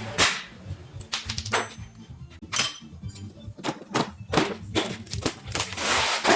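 Metal tools clicking and knocking in irregular succession as parts are worked on, with a longer rasping noise near the end, over background music.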